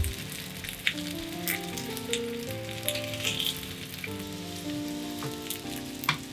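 Salted mackerel fillets sizzling steadily in rice oil in a small square frying pan. There are occasional light clicks as chopsticks work a paper towel around the pan to soak up the excess oil.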